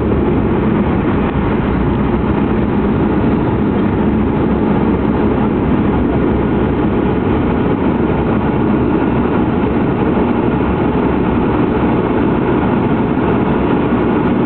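Turboprop airliner's engine and propeller running with a steady, loud drone, heard from inside the cabin next to the propeller.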